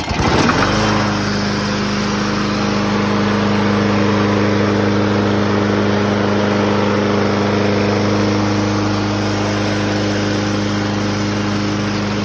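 Briggs & Stratton 6.0 HP (190cc) single-cylinder four-stroke mower engine, pull-started, catching at once and rising in speed within the first second. It then runs steadily at an even pitch on its rebuilt replacement carburetor.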